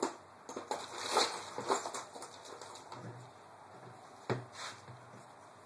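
Light clicks, taps and scrapes of small metal parts and a small screwdriver being handled while the C-clip on the full-auto sear pin of a gas-blowback airsoft rifle's lower receiver is worked at. A cluster of quick clicks comes in the first two seconds, with one sharper click about four seconds in.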